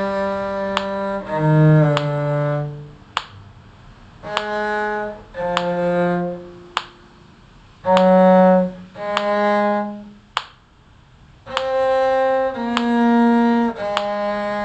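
A bowed string instrument playing a slow melody of long held notes, several of them low, separated by short pauses, played without a mute.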